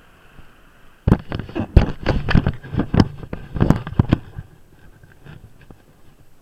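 A rapid, irregular run of sharp knocks and rattles lasting about three seconds, from the handlebar-mounted action camera and its mount being jolted on a moving scooter, then a few faint clicks.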